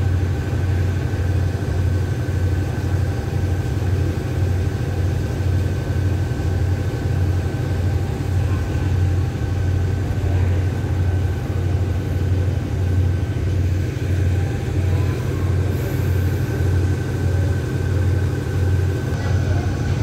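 Steady low hum of the standing train's GEK-class diesel-electric locomotive idling, with a faint steady whine above it.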